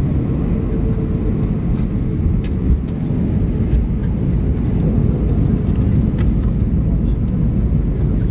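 Steady low rumble inside an Airbus A321 cabin as the jet lands, heard from a window seat, with a faint steady hum and a few light clicks.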